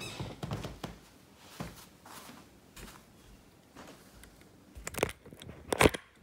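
Handling noise from a handheld camera being carried: scattered rustles and soft knocks, then two sharp knocks near the end, less than a second apart.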